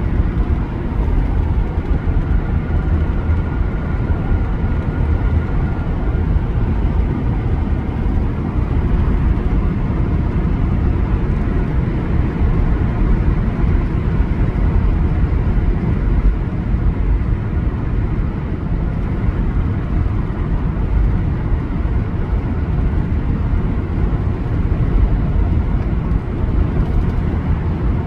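Car driving along a road: a steady low rumble of road and wind noise, with a faint high whine during the first few seconds.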